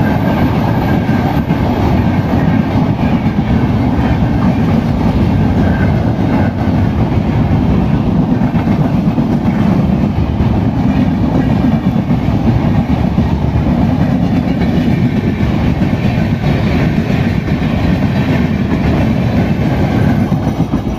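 Coaches of a passing Indian Railways express train going by at speed: a steady, loud rumble from the wheels and bogies with a continual clatter over the rail joints.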